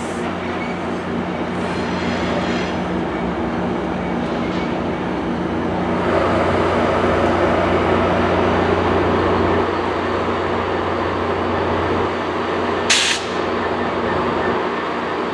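Metrolink diesel commuter train with bilevel coaches moving through the station: a steady diesel locomotive drone with wheel and rail rumble that builds about six seconds in and eases a few seconds later. A faint high squeal early on, and a short sharp hiss near the end.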